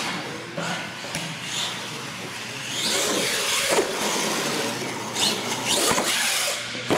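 R/C monster truck driving on a concrete floor: its motor whining up and down with the throttle and its tyres scrubbing. Near the end come a couple of sharp knocks as it hits a ramp, goes airborne and lands.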